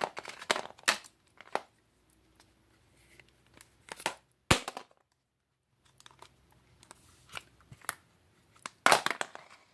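Scattered clicks and crackles of a broken plastic flip phone and its battery being handled, with one sharp snap about four and a half seconds in and a quick run of clicks near the end.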